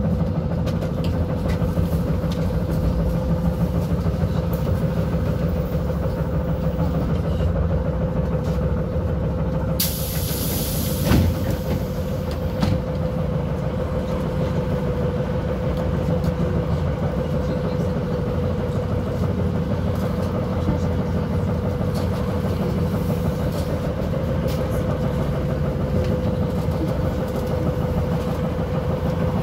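Interior noise of a ZiU-682G-016 trolleybus: a steady drone with a constant whine. About ten seconds in comes a short hiss of air, followed by a knock.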